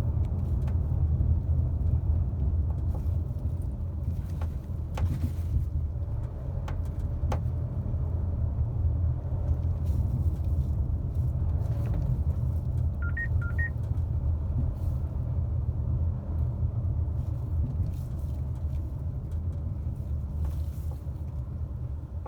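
Car driving, with steady road and tyre rumble and a few sharp knocks from the suspension as the wheels cross road seams. There is a short double beep about 13 seconds in.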